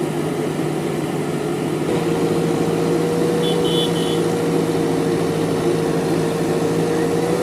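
JCB backhoe loader's diesel engine running steadily, its note stepping up slightly about two seconds in as the revs rise.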